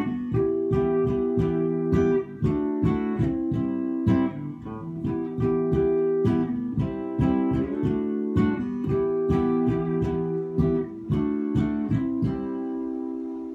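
Acoustic guitar playing an instrumental passage: chords picked and struck in a steady rhythm, ending near the end on a chord left to ring and fade.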